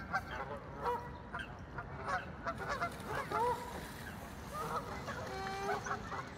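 Waterbirds calling from the lake: many short, overlapping calls in quick succession, with small birds chirping higher up.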